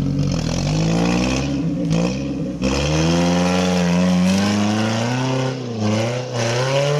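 Off-road vehicle's engine revving hard, its pitch climbing and falling again and again, with a short drop a little after halfway and a climb again near the end.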